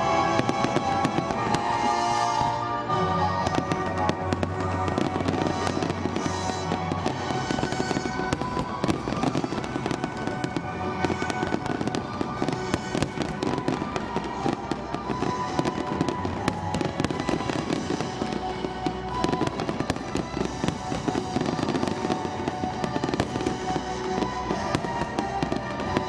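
Fireworks display: aerial shells bursting one after another in a dense, continuous barrage, with crackling, over the show's music soundtrack.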